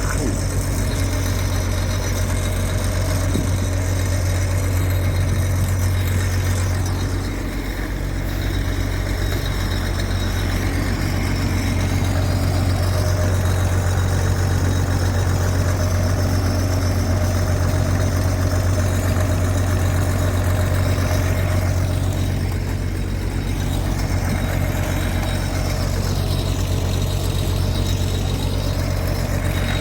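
Heavy farm-machinery engine running steadily at a constant speed with a deep, even hum, dipping briefly about seven seconds in.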